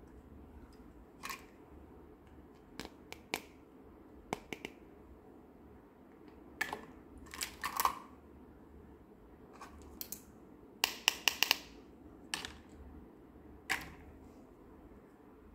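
Small plastic toy dishes, a cup and a plate, clicking and clattering as they are handled and set down in a plastic toy sink: scattered sharp taps, with a quick run of clatters about eleven seconds in.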